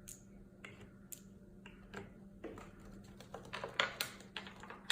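Scattered light clicks and taps of small hard objects being set down and moved on a hard surface, growing more frequent in the second half.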